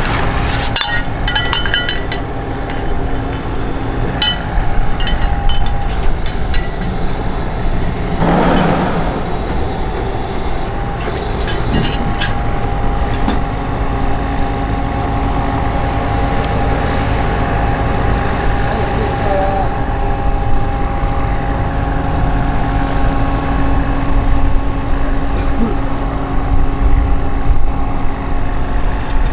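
An engine running steadily with a low rumble and a steady hum. Light metallic clinks come during the first several seconds, and a brief rushing noise comes about eight seconds in.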